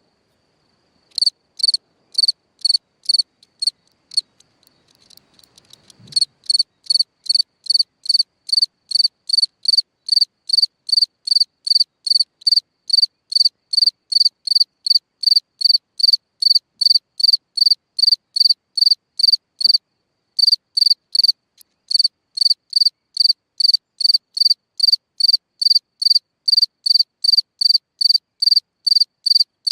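A single black ground-dwelling cricket chirping in an even rhythm, about two to three short high chirps a second. It starts about a second in, falters for a couple of seconds, then keeps a steady beat with one short break about two-thirds through.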